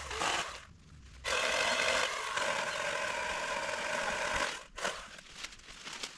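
Pole saw's motor revving hard for about three seconds, as when cutting through a limb, then dropping away.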